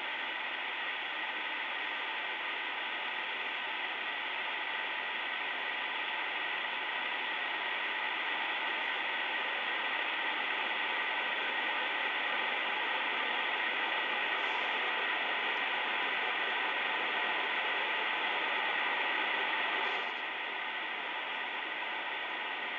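R-390A tube communications receiver's speaker putting out steady hiss and static as the set wakes up on reduced line voltage from a variac, with two faint steady tones in the noise. The hiss grows slightly louder, then drops a step near the end.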